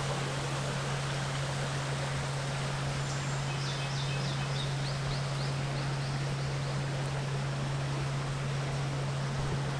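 Steady rushing of a flowing river over a constant low hum. A quick series of about a dozen faint, high chirps from a bird comes about four seconds in.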